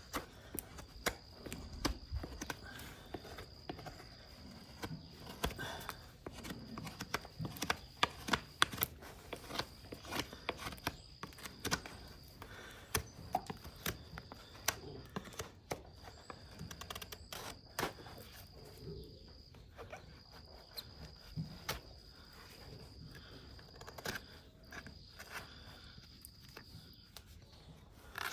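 Hoof trimming on a horse: irregular sharp clicks, snaps and scrapes of farrier's tools cutting and paring hoof horn. In the background an insect's steady high trill starts and stops in stretches.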